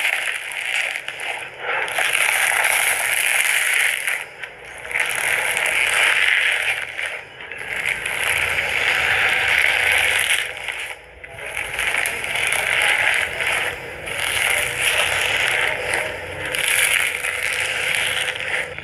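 Giant foam slime being squeezed and kneaded by hand, crackling and popping in repeated squeezes about every two seconds, with short pauses between.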